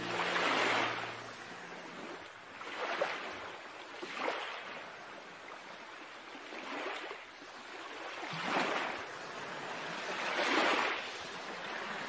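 Sea waves surging and washing, each swell rising and fading every couple of seconds, with the tail of soft music dying away about a second in.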